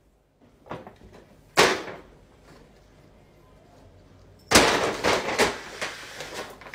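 Brown paper bag crackling: two sharp snaps of the paper, then after a pause about two seconds of loud crinkling and rustling as a cat dives into the bag.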